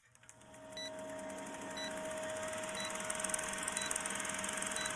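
A steady electronic tone with a short, high beep about once a second, fading in at the start.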